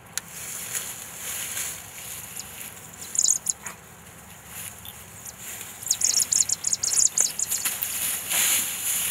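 Dry fallen leaves rustling and crackling as a Harris's hawk shifts on its rabbit kill and a falconer's hands work in the leaf litter beside it, in quick clusters of crackles about three seconds in and again from about six to eight seconds in.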